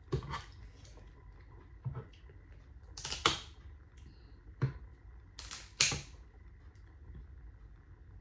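A handful of sharp, irregular cracks and clicks from eating boiled seafood by hand, such as shells being broken and handled; the loudest come about three seconds in and just before six seconds in.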